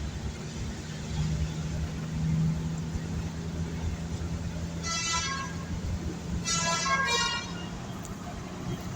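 Telolet bus horn, a musical multi-tone air horn, playing a short burst about halfway through and then a longer run of several notes a second later, over the steady low hum of the bus engine.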